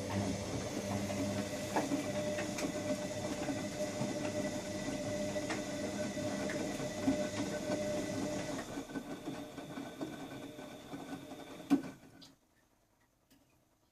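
Washing machine drum tumbling during a wash, the motor humming steadily with light clicks and knocks. About two-thirds through the motor eases off, there is one sharp knock, and the drum stops, leaving near silence: the pause between tumbling turns.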